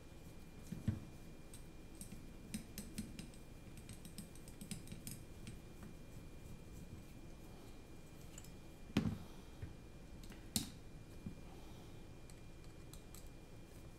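Small clicks and light taps of a carbon-fibre drone frame being put together by hand: hex drivers working screws, and frame parts and standoffs clicking against each other and the bench mat, with two sharper knocks in the second half.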